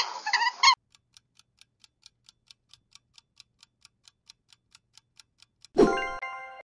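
A brief end of a rabbit sound clip with short squeaks, cut off under a second in. Then a quiz countdown clock ticking evenly, about four to five ticks a second. Near the end comes a bright chime-like answer-reveal sound effect that rings and fades.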